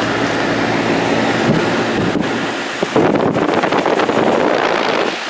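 2011 Goodman central air conditioner's outdoor condenser unit running: a steady compressor hum under the rush of the condenser fan, with air buffeting the microphone. The rushing grows louder about three seconds in.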